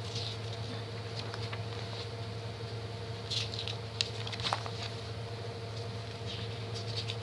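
Faint rustling and a few small clicks and taps as merchandise and packaging are handled, the sharpest about halfway through, over a steady low electrical hum.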